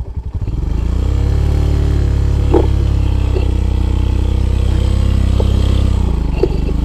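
Irbis TTR250 motorcycle engine revved up in gear and held at steady high revs while the bike is stuck in riverbed silt and being pushed, then dropping back near the end. A few short knocks about two and a half seconds in.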